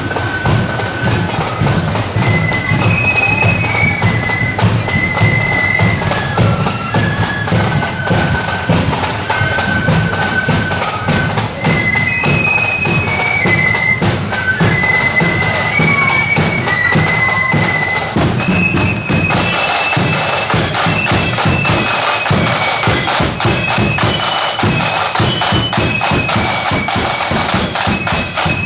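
Marching flute band playing a tune in high, stepped notes over side drums and a steady drum beat. About two-thirds of the way through the snare drumming turns louder and crisper as the drummers pass close.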